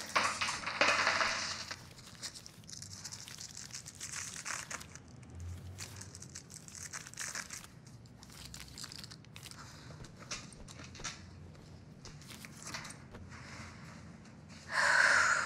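Rustling and crinkling handling noises with scattered clicks, louder for the first second or so, soft through the middle, with a louder rustle burst near the end.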